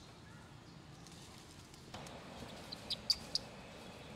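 Forest background with a quick run of four or five short, high-pitched bird chirps a little under three seconds in.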